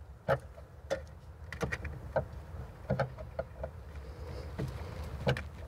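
A new gas-charged trunk lift support being worked onto its rear ball-stud mount: irregular sharp clicks and small knocks, about eight over a few seconds, over a low steady hum.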